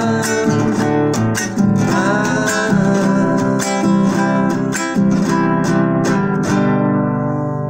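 Acoustic guitar strumming the closing bars of a folk song, ending on a final chord struck near the end and left to ring.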